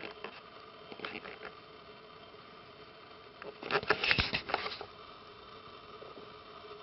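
Quick scratchy patter of young kittens' claws and paws on the fabric bedding, a few light scratches about a second in, then a louder burst of scratching about four seconds in.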